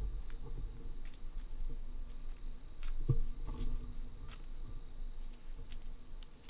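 Insects in the woods keep up a steady high-pitched drone. Low bumps and rustles from handling the camera run underneath it, with a sharper knock about three seconds in.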